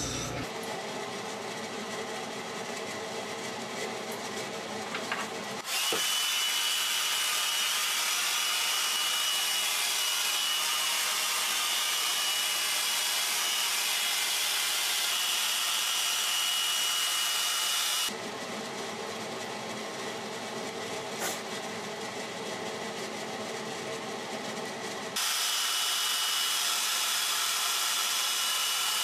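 Handheld hair dryer blowing: a steady rushing hiss with a thin high whine. It switches on about six seconds in, cuts off around eighteen seconds, and comes on again about seven seconds later.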